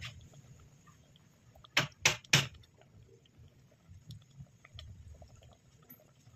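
A pot of spaghetti and sauce cooking, with faint scattered pops and a low bubbling rumble. Three sharp clicks come in quick succession about two seconds in.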